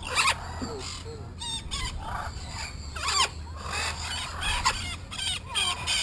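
Parrots squawking and chirping over one another, with a sharp screech right at the start and a long falling squawk about three seconds in.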